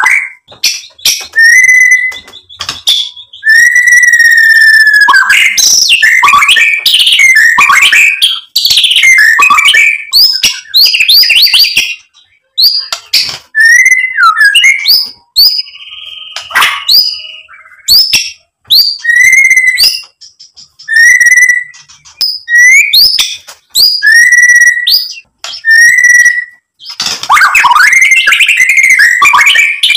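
White-rumped shama singing loudly: a run of varied clear whistles and rapid chattering, trilled phrases with short pauses. In the second half it gives single whistled notes every second or two, then breaks into a dense, rapid burst of song near the end.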